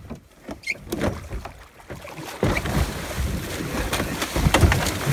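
Water splashing and churning as a large hooked halibut thrashes at the surface beside a small boat, with sharp knocks through it. The splashing starts suddenly about two and a half seconds in and stays loud.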